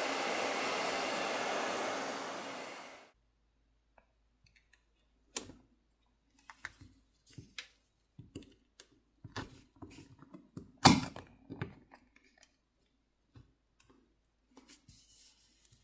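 Hair dryer blowing steadily, heating the phone's back glass to soften the adhesive underneath; it stops abruptly about three seconds in. Then a run of light clicks and scrapes as a plastic pry pick and suction cup work at the edge of the back plate, with one sharp click about eleven seconds in.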